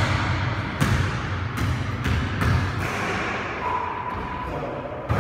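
A basketball bouncing on a hardwood gym floor: about half a dozen hard, irregularly spaced thuds, each echoing in the large hall.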